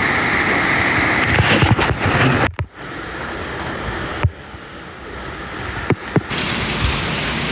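Hurricane wind and rain rushing over the microphone as a dense, steady noise. It drops off and changes abruptly a few times, with a few sharp knocks.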